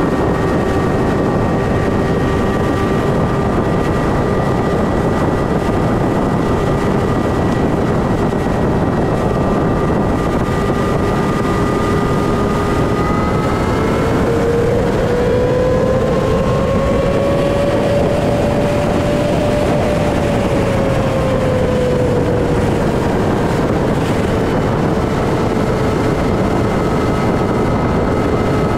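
Motorcycle engine running at a steady cruise under a loud, steady rushing noise. About halfway through, its note rises for a few seconds and then settles back down.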